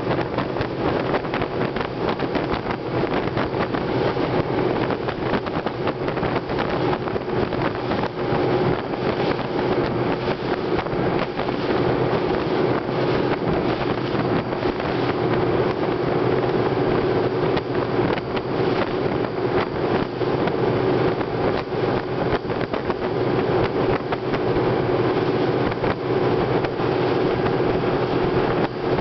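Fast rigid inflatable boat under way: its engine running steadily at speed with an even tone, mixed with wind rushing over the microphone.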